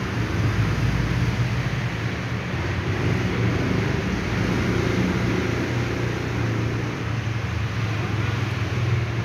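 Steady low mechanical drone with an even hiss above it, continuous and unchanging throughout.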